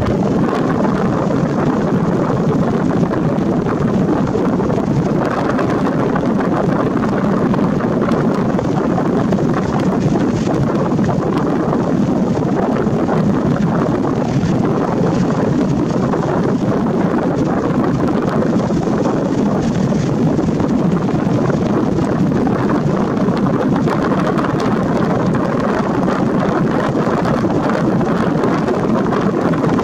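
Steady, loud wind rushing over the camera's built-in microphone, an even roar that hardly changes in level.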